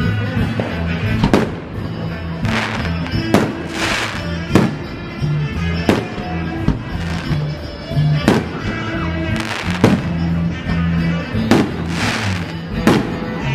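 Aerial firework shells bursting, a sharp bang about every second, over music with a steady low bass line.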